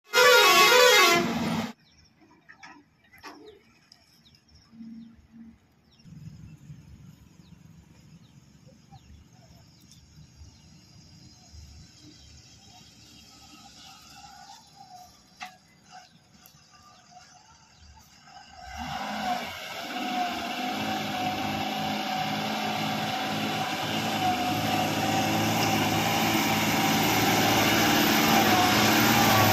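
Diesel engine of a loaded Tata tipper truck growing steadily louder from about two-thirds of the way in as the truck comes up toward the hairpin. It runs steadily as it nears. Before it, a short loud burst opens, followed by a long stretch of only faint sounds.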